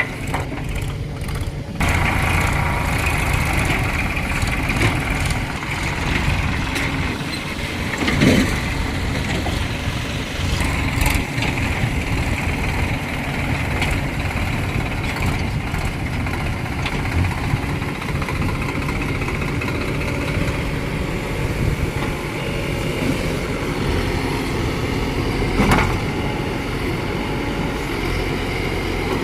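Diesel engine of a Tata Hitachi Shinrai Prime backhoe loader running under working load while digging and loading mud. It picks up about two seconds in, and there are a couple of brief knocks later on.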